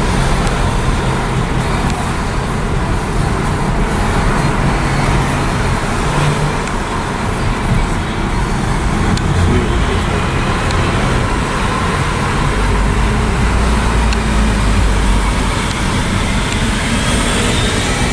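Street traffic with car engines running at low revs, a steady low engine hum.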